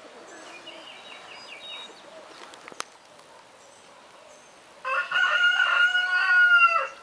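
A rooster crowing once: one long held call of about two seconds near the end, dipping in pitch as it ends.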